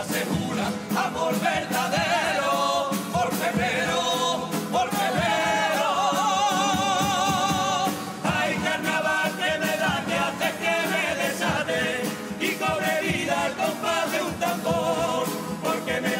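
A men's murga chorus singing in unison with strong vibrato on held notes, with drum and cymbal beats driving the rhythm underneath.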